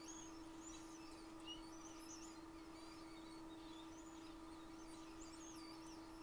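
Near silence: a faint steady low hum with many faint, short, high chirps, like small birds.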